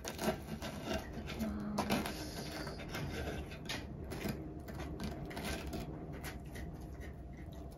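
Knife and fork cutting through a slice of bread-quiche toast on a ceramic plate: repeated light scrapes and clinks of steel cutlery against the plate.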